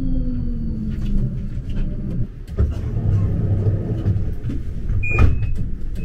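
Low rumble of a road vehicle, with a motor whine falling steadily in pitch over the first two seconds as it slows, then general street traffic noise. A sharp click and a short high beep about five seconds in.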